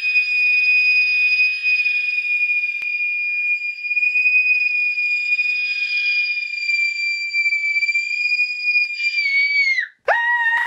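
A long, high-pitched whistling tone, held steady for about nine seconds, then sliding down in pitch and cutting off just before the end, with a new, lower tone starting straight after. It is a comic 'scream' dubbed over a slow-rising squishy toy as it swells back into shape.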